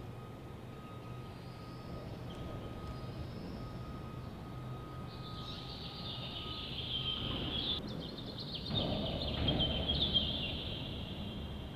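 Hangar background noise: a faint beep repeating on and off, then a higher wavering squeal and a low machine rumble that grows louder about nine seconds in.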